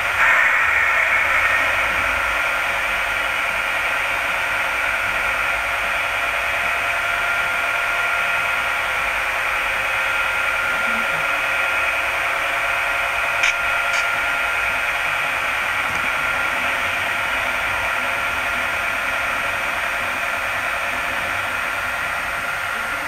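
Model diesel switcher locomotive running slowly with a train of hopper cars on a model railway: a steady whirring hiss from the model's running gear on the track, with a couple of faint clicks about midway.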